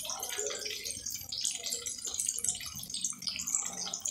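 Hot oil sizzling and crackling steadily in a frying pan as breaded onion rings deep-fry.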